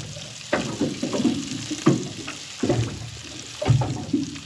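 A man eating close to the microphone: chewing and mouth sounds with short murmured hums, coming every second or so.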